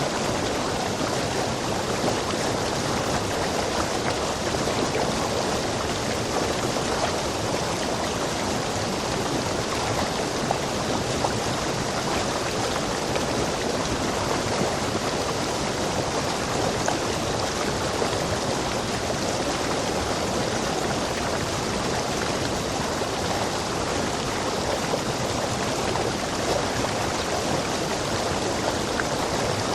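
Rainforest stream rushing steadily over rocks, a constant even rush of water.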